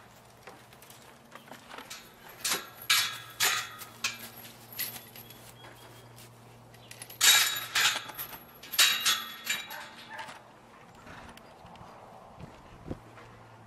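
Pinto horse moving about and nosing at the hay-strewn ground by the fence: two clusters of short rustling noises, one about two and a half seconds in and a louder one about seven seconds in, over a steady low hum.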